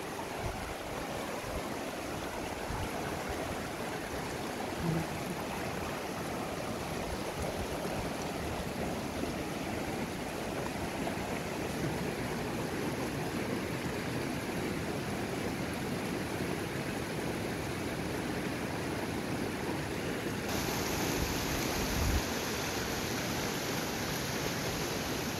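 Shallow rocky river rushing steadily over stones and riffles. The sound turns abruptly brighter and hissier about twenty seconds in.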